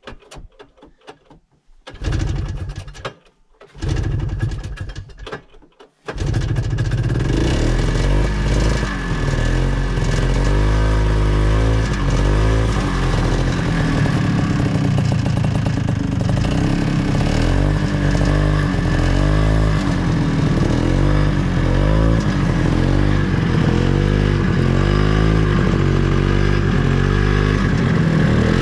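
Snowmobile engine being started: two short tries that fire and die, then about six seconds in it catches and keeps running, its speed rising and falling.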